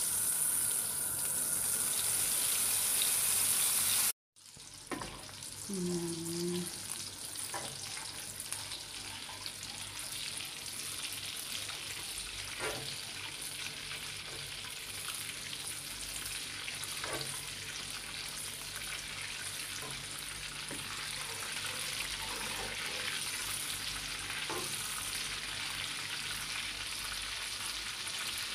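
Butter sizzling as it fries in a hot wok, stirred with a wooden spatula that scrapes and taps the pan now and then. The sound cuts out completely for a moment about four seconds in, then the sizzle carries on steadily.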